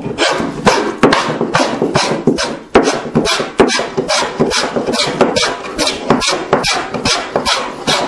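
Fore plane taking rapid, heavy strokes across the rough-sawn face of a board, about three strokes a second, each a short rasping cut of shavings. It is hogging off saw marks and thickness down to a gauge line.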